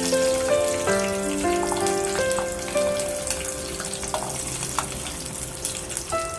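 Background music, a melody of held notes, over food sizzling and crackling in a frying pan.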